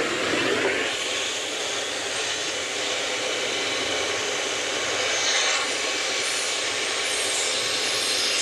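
Gas torch flame with a steady hiss, heating a rusted, seized exhaust-flange bolt to burn it out.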